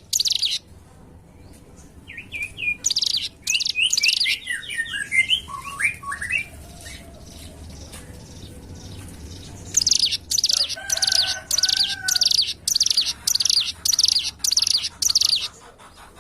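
Ciblek gunung song: after a short high chirp, a quick run of descending notes. From about ten seconds in, a fast series of high, buzzy trilling bursts, two or three a second.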